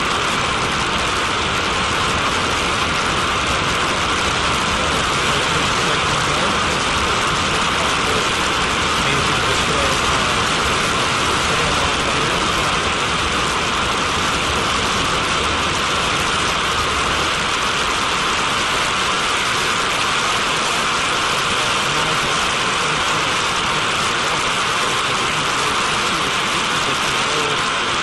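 Turbojet engine of a TMS-65 decontamination vehicle running flat out, its exhaust blasting a jet of water spray and steam: a loud, steady rushing hiss that does not change.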